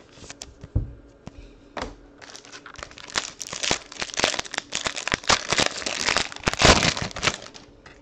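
Plastic wrapper of a pack of basketball trading cards crinkling loudly as it is torn open and peeled away, from about two seconds in until shortly before the end. Before that come a few light taps and rustles as a card is slid into a clear plastic sleeve.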